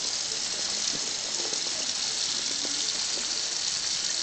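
Kitchen tap running steadily, its stream splashing into a stainless steel sink.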